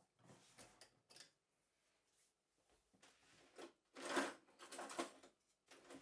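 Kitchen items being handled: a few soft clatters and knocks, loudest about four to five seconds in.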